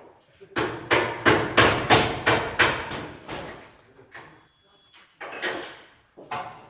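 Hammer blows on stainless-steel sheet: a quick run of about nine strikes roughly three a second, fading off, then a few more spaced blows near the end.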